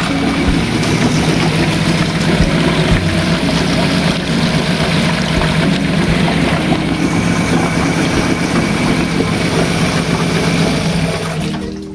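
1983 Honda B100 10 hp four-stroke outboard motor running steadily, freshly brought back to life, fading out near the end.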